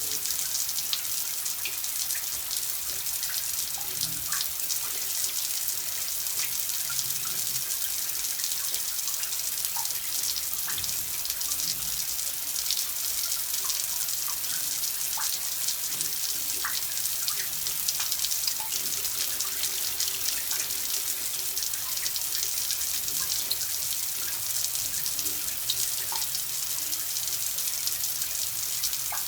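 Running water pouring and splashing steadily, a continuous hiss with many small droplet plinks, like a tap or trickle running into water.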